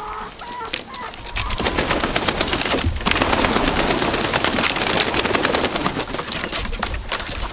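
Chickens leaving their coop: a few short clucks at the start, then from about a second and a half in a loud, dense crackling flutter of hens flapping their wings as they hop down the wooden ramp.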